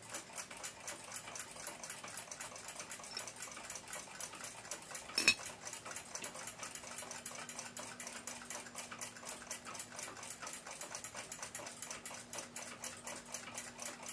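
Chelsea ship's bell clock movement ticking fast and evenly, with one sharp knock about five seconds in.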